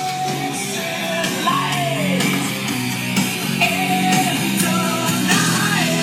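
Music with a singing voice over steady instrumental notes.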